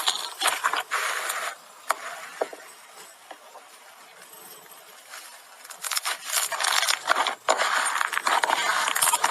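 Slime being squeezed and poked by hand, making a run of sticky clicks and crackling pops. It is busy at first, quieter through the middle, then thick and loud again in the last few seconds.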